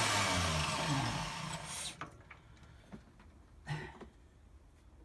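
Lister D stationary engine driving a circular saw bench by belt, running down: its pitch falls and the sound fades out over the first two seconds. A few light clicks and a knock follow.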